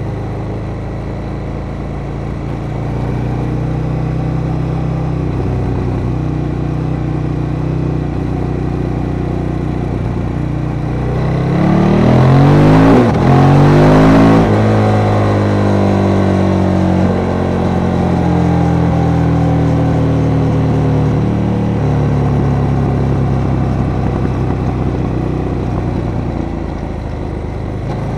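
KTM 1290 Super Duke R's V-twin engine running on the road, revving up strongly under throttle a little before halfway, at its loudest there, then falling back and settling into steady running.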